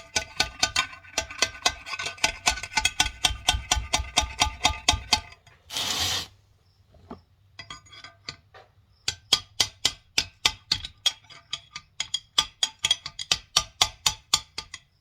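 Rapid hammer blows on steel, about four a second with a metallic ring, driving a locked-up bearing out of a tractor's front final drive housing. The blows stop about five seconds in, a short scraping rush follows near six seconds, and hammering starts again about nine seconds in.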